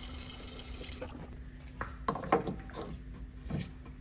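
Gasoline pouring from a gas can through its spout into a Datsun 280Z's filler neck, filling the empty fuel tank, as a steady hissing pour that trails off about halfway. Then come a few knocks and clicks from the can and the filler being handled.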